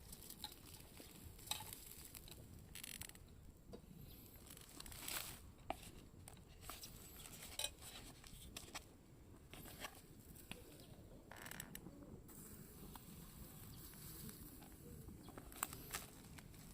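Faint scattered rustles and light clicks from things being handled, such as packaging or cooking gear.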